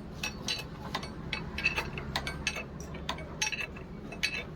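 Metal hand tools and motorcycle parts clinking and clicking during reassembly work: an irregular run of sharp metallic clicks, several a second.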